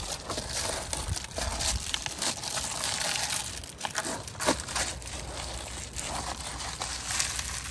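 Reflectix foil-faced bubble insulation panel crinkling as it is pushed and pressed by hand into a car door's window frame, with irregular crinkles and small crackles throughout.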